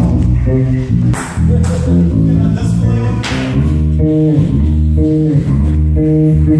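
Live band playing loud at a sound check: bass guitar and electric guitar holding notes that change every second or so, with two crashes about one and three seconds in.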